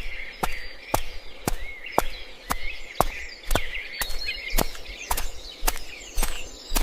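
Evenly paced footsteps, about two sharp steps a second, over birds chirping.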